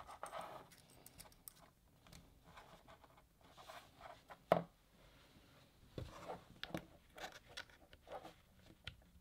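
Faint clicks and rustling from the handling of a coiled keyboard cable: its metal aviator connector being coupled, with one sharper click about four and a half seconds in, then small clicks as the USB-C plug goes into the keyboard near the end.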